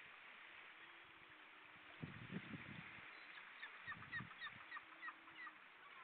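Faint, distant honking calls of waterfowl, with a quick run of a dozen or so short calls about halfway through.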